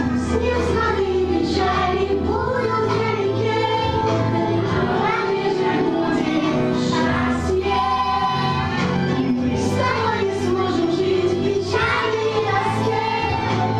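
Young children singing together over instrumental accompaniment with a steady bass line.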